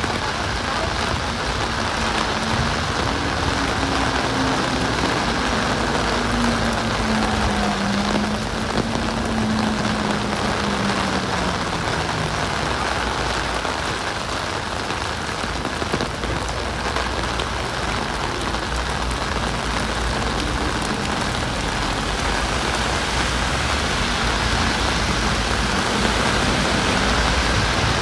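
Heavy rain falling steadily, a dense even hiss. A faint low hum slides slowly down in pitch during the first half.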